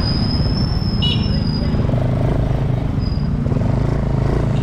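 Motorcycle-taxi engine running steadily under way, with road noise.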